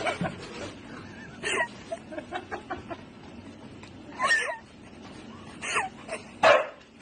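A dog giving about four short, high yips spread over several seconds, the loudest near the end, with faint clicks and taps between them.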